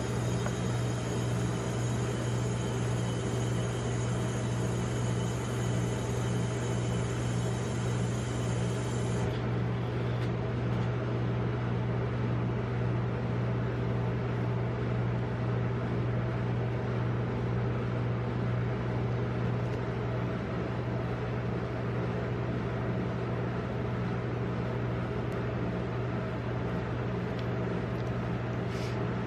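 Refrigeration compressor of a rolled-ice-cream machine's cold plate running with a steady low hum. A set of faint high tones over it cuts off suddenly about nine seconds in.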